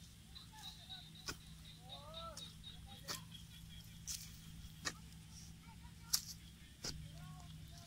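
A long-handled digging spade being jabbed down into packed soil: a series of sharp strikes, about one a second.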